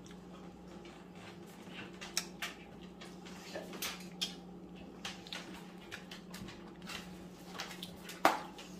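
Eating sounds: a man chewing and handling food and its container, with scattered light clicks and taps and a sharper click near the end, over a steady low hum.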